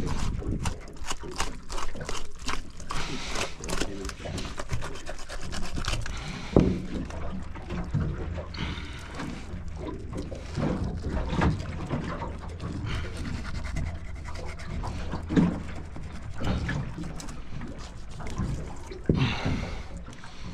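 Wet squelching and rubbing of hands pulling the innards out of a large, freshly caught blue-eye trevalla, in short irregular strokes over a steady low hum.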